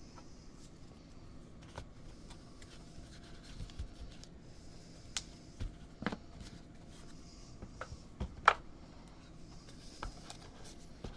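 Trading cards and plastic card sleeves being handled on a table: light rustling with scattered clicks and taps, the sharpest about eight and a half seconds in.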